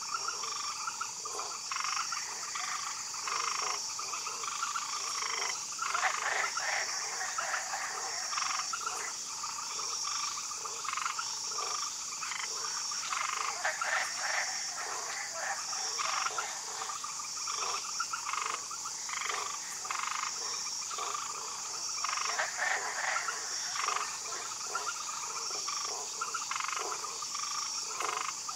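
A chorus of frogs croaking in many overlapping short calls, over a steady high-pitched trill that swells about every second and a half.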